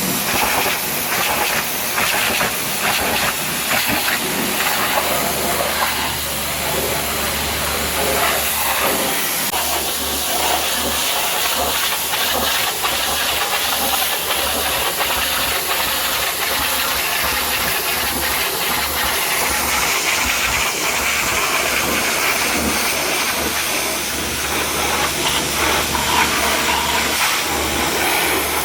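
High-pressure washer jet spraying water onto a muddy truck's body: a steady loud hiss and spatter, with a low steady hum underneath.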